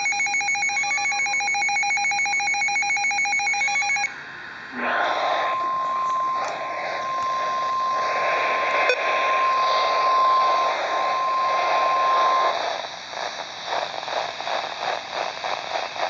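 A weather radio receiver's electronic alert beeping for about four seconds, then cutting off; the NOAA Weather Radio broadcast then comes in through heavy static, carrying the steady 1050 Hz warning alarm tone for about seven seconds, followed by pulsing static.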